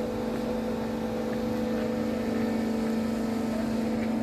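Steady, even drone of heavy construction machinery, holding one low pitch throughout.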